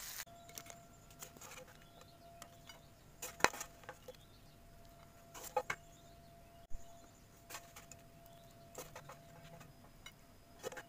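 Faint scattered clicks and light knocks, a second or two apart, over a faint steady high hum.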